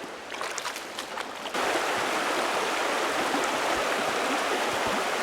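Creek water flowing, quiet at first with a few faint clicks, then a steady, loud rush of water that starts abruptly about a second and a half in.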